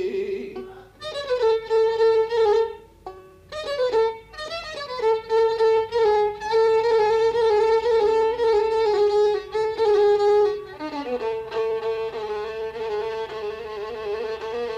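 Violin playing a solo melody of long held notes with slides between them, an instrumental passage of an Arabic song. The line breaks off briefly about a second in and again around three seconds in.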